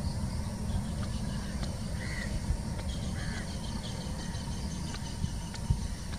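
Airbus A320-family jet airliner climbing away after take-off, heard from afar as a steady low rumble. A crow caws twice, about two and three seconds in.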